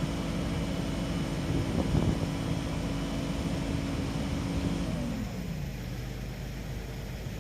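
Heavy construction-vehicle diesel engine running steadily at raised revs, with a brief louder rush of noise about two seconds in; about five seconds in, the revs drop and it settles to a lower idle.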